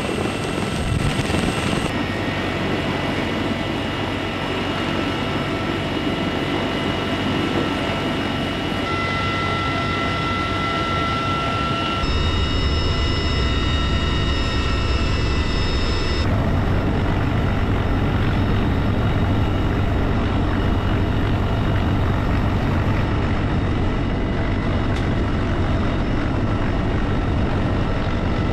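CH-53E Super Stallion helicopter running, heard from its cabin. A steady rotor rumble with the whine of its three turboshaft engines. The tone and balance change abruptly a few times.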